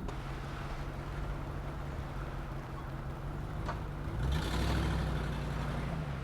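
Land Rover Discovery 2 engine running as the truck drives off-road. There is a single sharp knock a little before four seconds in, then the engine and rumble grow louder for a couple of seconds.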